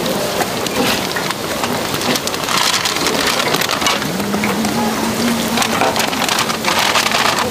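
Seed hotteok (Korean filled pancakes) frying in a large pan of hot oil: a loud, steady sizzle, with scattered small clicks of the metal press and tongs.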